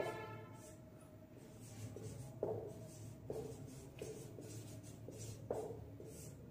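Marker pen writing on a whiteboard: a string of short, faint strokes, some with a slight squeak, the sharpest about two and a half seconds in and again near the end.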